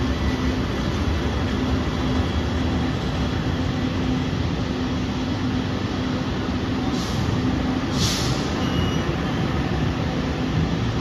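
Passenger train running, a steady rumble of wheels on rail with a steady hum, and two brief hisses about seven and eight seconds in.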